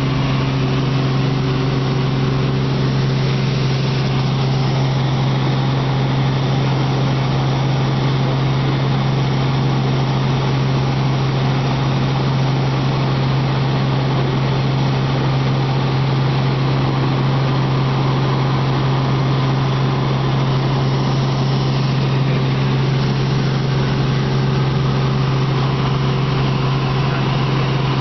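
Robinson R44 Raven helicopter in flight, heard from inside the cabin: the piston engine and rotors make a steady, unchanging drone with a strong low hum over a constant rushing noise.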